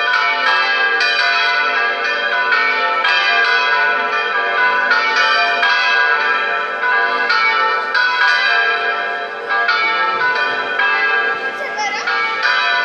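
Electronic church bells ringing a festive distesa of four bells tuned D4, B3, A3 and G3, played through the belfry's loudspeaker. Strikes come in a dense, continuous, overlapping peal, each note ringing on under the next.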